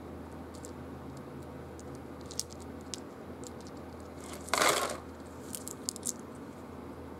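Small disc-shaped board-game pieces clicking against one another in the hands. About halfway through there is a brief, louder rattle as a handful is tipped into the box's tray, followed by a few more clicks.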